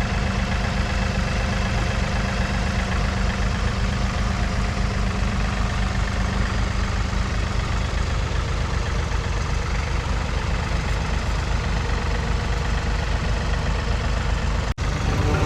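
Compact diesel engine idling steadily with an even low throb. The sound drops out for an instant near the end.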